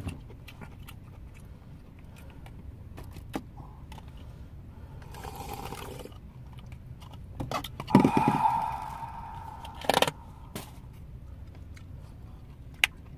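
Eating sounds: sundae gukbap soup slurped from a foam takeaway bowl, with a longer, louder noisy burst about eight seconds in, and sharp clicks of chopsticks and plastic containers, over a low steady hum.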